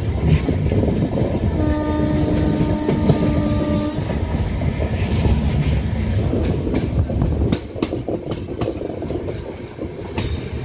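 Passenger train running with a heavy low rumble and wheel clatter; its horn sounds once, a steady tone held for about two seconds, starting a couple of seconds in. The rumble eases somewhat near the end.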